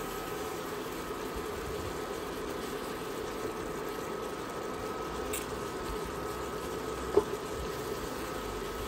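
Sauce bubbling and sizzling under pork and mushrooms in a cast iron skillet on high heat as it reduces, over the steady hum of an induction cooktop. A single sharp knock about seven seconds in.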